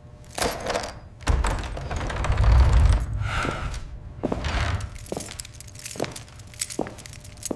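A series of sharp knocks and thuds, with a low rumble building from about a second in and lasting a couple of seconds.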